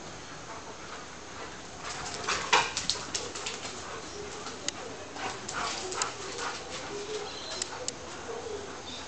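Alaskan Malamutes vocalizing during rough play: a quick string of short whines and yelps mixed with sharp scuffling sounds, starting about two seconds in, with one more short call near the end.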